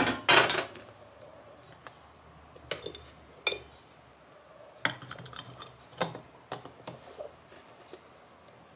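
Glass teapot, stainless-steel tea infuser and lid being handled: a short loud clatter just after the start, then scattered light clinks and taps of glass and metal.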